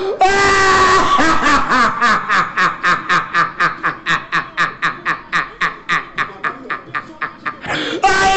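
A long, mocking burst of laughter: a rapid run of 'ha' pulses, about four to five a second, lasting some seven seconds.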